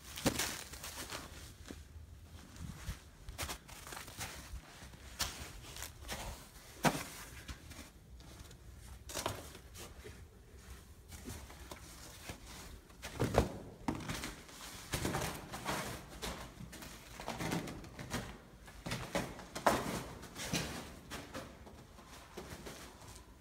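Footsteps of a person walking over snow and then into a concrete bunker, irregular steps with scattered knocks.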